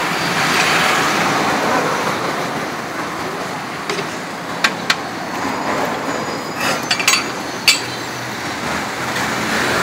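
Steady street traffic noise, with a few sharp clicks and clinks about halfway through.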